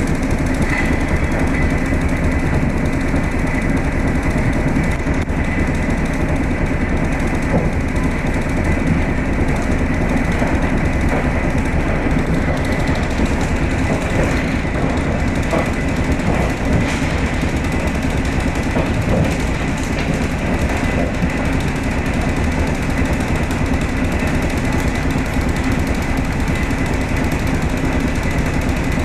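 Inside the carriage of an electric commuter train (elektrichka) that is running: a steady rumble and rattle from the carriage and wheels, with a faint high whine held on one pitch.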